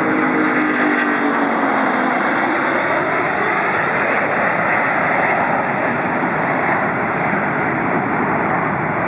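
Jet airliner engines passing close by: a loud, steady rush of engine noise, with a few low tones fading out in the first two seconds.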